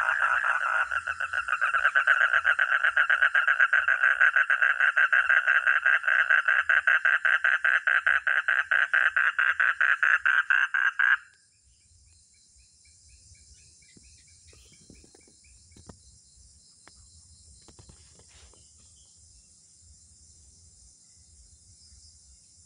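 Frog calling at close range in a loud, rapid pulsed trill that stops abruptly about eleven seconds in. Faint, steady high-pitched insect chirring is left underneath.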